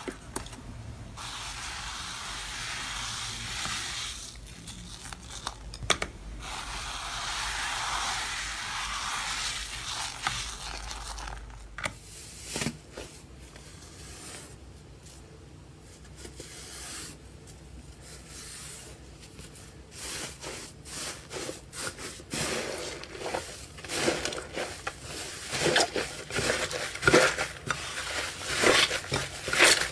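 Slime being worked by hand: a steady crinkly hiss for the first dozen seconds, then quieter handling, then a run of sharp crackles and pops that grows louder over the last ten seconds.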